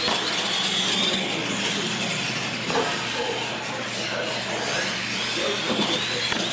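Radio-controlled monster trucks racing, their motors and geared drivetrains whining high. The whine rises at the start, dips in the middle and climbs again near the end as the truck goes over the ramp.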